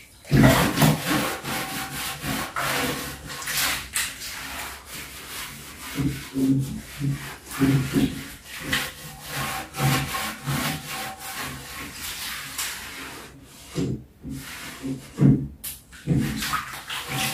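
A cloth rubbing back and forth along a wooden wall shelf, wiping it down with furniture polish to remove dust, in repeated rough strokes.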